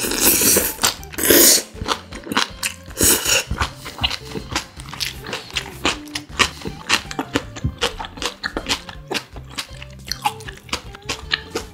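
Close-miked eating of spicy noodles with young radish kimchi: two long noisy rushes of noodles being slurped near the start, then rapid crisp crunching and chewing. Background music with a low bass line plays underneath.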